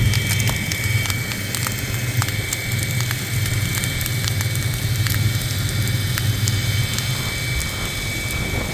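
Wildfire burning through vegetation: irregular sharp crackles over a steady low rumble.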